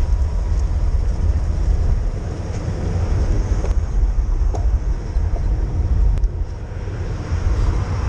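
A heavy tipper truck's engine and tyres make a loud, steady low rumble as it overtakes a cyclist close alongside and pulls ahead on the climb. Wind buffets the bike-mounted microphone at the same time.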